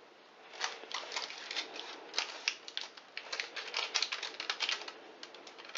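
A metal spoon scraping and tapping as thick cake dough is spread into a tin lined with baking paper, with the paper rustling: a rapid, irregular run of short clicks and scrapes.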